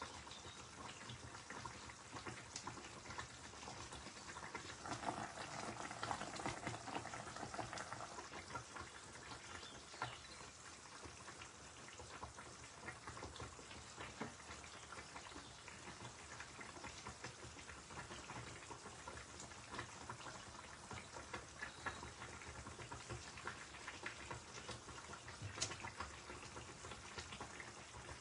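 Fish and yardlong bean curry cooking in a pan, sizzling and crackling steadily with scattered ticks, a little louder about five to eight seconds in.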